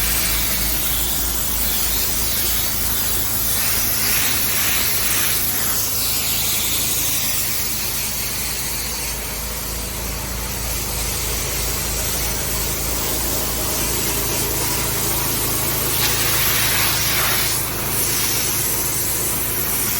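Pressure washer jet spraying a deck to strip acrylic paint: a steady loud hiss that swells twice as the wand moves, over the machine's low steady hum.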